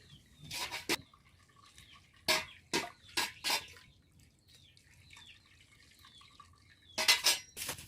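Water splashing and dripping in short bursts as boiled noodles are rinsed with cold water and drained, with a louder splash near the end.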